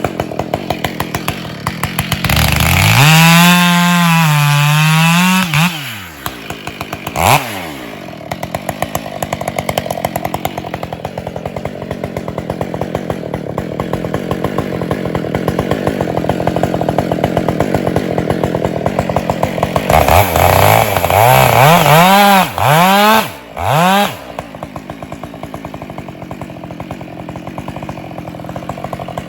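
Husqvarna 572 XP two-stroke chainsaw idling with a rapid, even popping. It revs up for about three seconds near the start, blips once shortly after, then revs again in several quick rises and falls about two-thirds of the way through before dropping back to idle.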